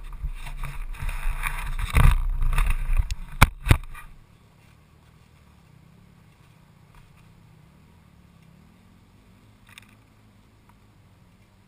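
Wind buffeting and bumping on a motocross bike's mounted camera while riding over a dirt track, with two sharp knocks about three and a half seconds in. About four seconds in it drops suddenly to a faint low hum: the Honda CRF250R's single-cylinder four-stroke engine idling while the bike stands still.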